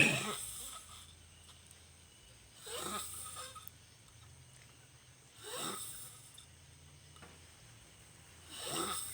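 A sleeping person snoring: four snores about three seconds apart, the first the loudest.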